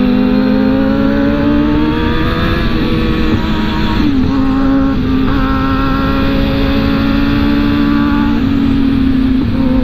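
Sport motorcycle engine running hard at high revs under way, its pitch climbing slowly for the first few seconds, dipping briefly about four seconds in, then holding steady, with wind rushing over the bike-mounted microphone.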